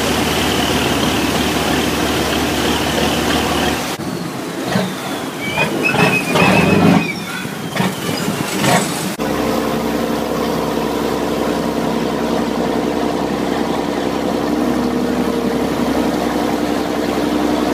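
A river passenger boat's engine runs steadily under the rush of water along the hull. From about four to nine seconds in, while the boat lies at a pier, the engine drops back under clunks, knocks and a few short high tones. Then the engine runs steadily again.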